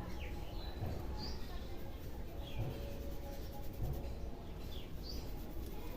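Birds chirping now and then, short high calls about once a second, over a few soft low thumps.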